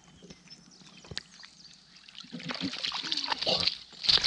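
Shallow creek water splashing and sloshing around a large alligator gar held at the water's edge, with one loud splash near the end. Low voices talk underneath in the second half.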